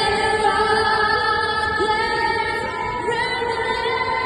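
A woman singing long held notes, moving to a new note about three seconds in.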